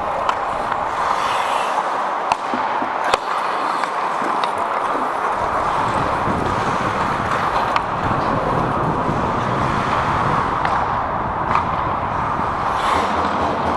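Ice hockey play: a steady scraping hiss of skate blades on ice, with several sharp clacks of sticks and puck.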